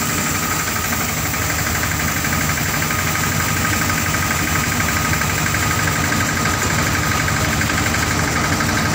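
Steeltrac 18 tractor engine running steadily, driving a thresher through its PTO shaft.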